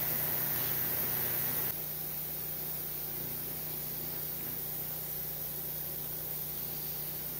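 Steady hiss with a low electrical hum underneath, dropping a little in level about two seconds in.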